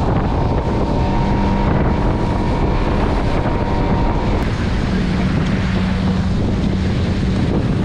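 Wind buffeting the microphone aboard a moving boat, with a steady motor hum underneath. The hum shifts pitch about halfway through.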